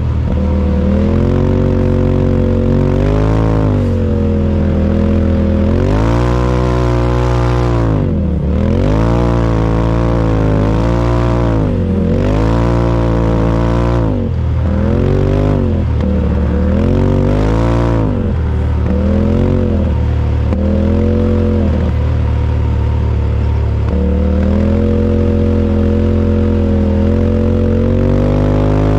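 Side-by-side UTV engine running hard, its revs swinging up and down every second or two as the throttle comes on and off.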